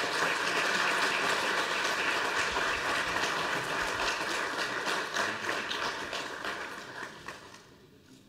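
Audience applauding, a dense patter of handclaps that fades away over the last couple of seconds.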